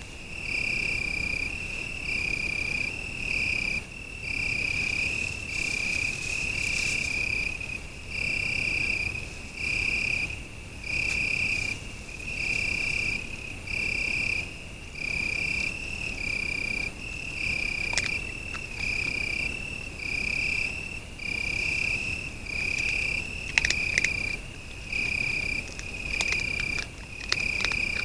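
A cricket calling at night, a short high trill repeating about once a second without a break. A few sharp clicks come through in the second half.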